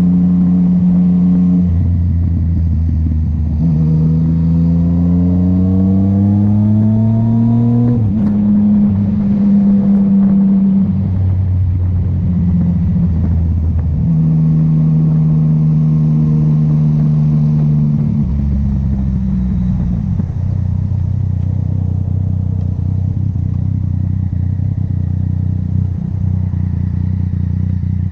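Yamaha MT-09 three-cylinder engine and exhaust under way on the road. The pitch climbs for a few seconds as it accelerates, drops at a gear change, holds steady while cruising, then falls as the throttle is eased off.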